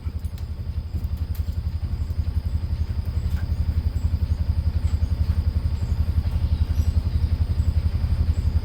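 A nearby engine idling with a steady, fast low throb.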